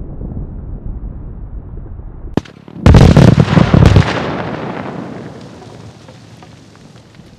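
Rock-blasting charges in drilled bedrock holes detonating on delayed blasting caps: a single sharp crack, then about half a second later a loud blast of rapid cracks and booms lasting about a second, fading away over several seconds.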